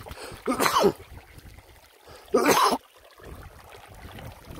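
Shallow river trickling over rocks, with two short, loud vocal sounds breaking in, about half a second and two and a half seconds in.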